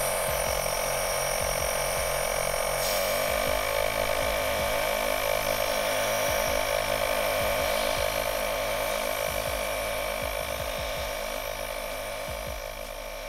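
Engine-bay air compressor running steadily while compressed air is blown over a camp-stove burner. Its pitch rises slightly about three seconds in, and it fades out near the end.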